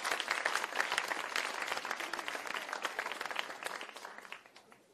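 Audience applauding: a dense patter of many hands clapping that thins out and dies away near the end.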